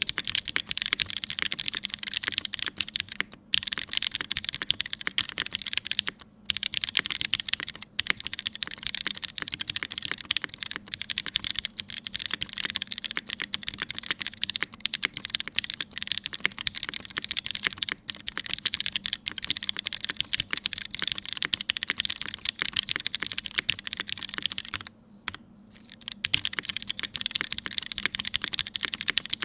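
Fast, continuous typing on a Keycult No.1 TKL mechanical keyboard with lubed and filmed Cherry MX Brown switches in an aluminium plate, with GMK keycaps, a dense stream of key clacks. The typing breaks off briefly a few times, longest about 25 seconds in.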